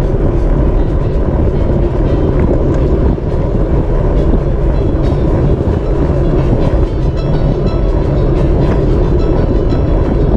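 Wind rumble and road noise on a bicycle-mounted camera at race speed: a loud, steady roar with scattered faint clicks, cutting in abruptly at the start.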